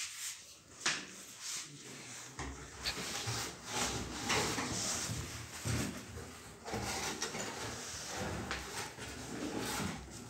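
Kitchen cabinet doors and drawers being opened, moved and closed: a series of knocks and clicks with rubbing and sliding between them, the loudest knock about a second in.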